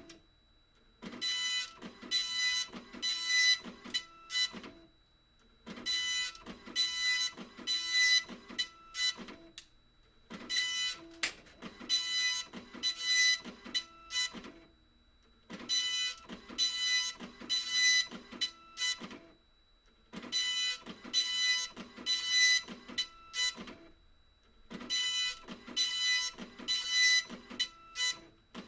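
Epson LQ2550 24-pin colour dot-matrix printer printing: the print head buzzes across the page in passes of about three to four seconds, each pass a rapid run of pitched strokes, with a pause of about a second between passes. Each line is printed in several passes, one per ribbon colour, with the head shifting to the next colour between them.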